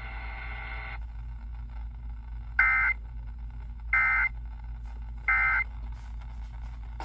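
Emergency Alert System end-of-message data bursts: three identical short, harsh digital buzzes about 1.3 seconds apart. They mark the close of the relayed severe thunderstorm warning. They play through a radio receiver over a steady low hum.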